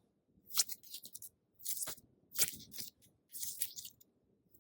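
Sticky, sparkly banana squishy toy being squeezed and handled, giving five or so short crackly squelches, each about half a second to a second after the last.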